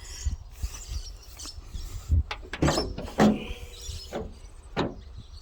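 A few scattered knocks and clicks with a short creak about three seconds in, over a low rumble on the microphone.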